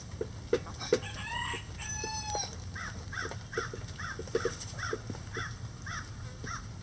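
Rooster crowing once about a second in, the crow ending on a long held note. It is followed by a steady run of short, repeated bird calls, about three a second, with scattered sharp taps over a low steady hiss.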